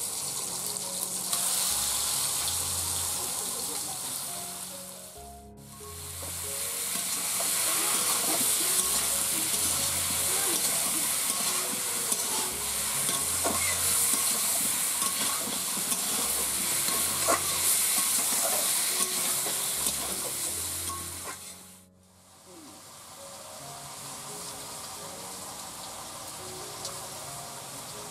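Raw chicken pieces just added to potatoes in hot oil in an iron karahi, frying with a loud steady sizzle. The sizzle drops away briefly twice, about five seconds in and again just past twenty seconds.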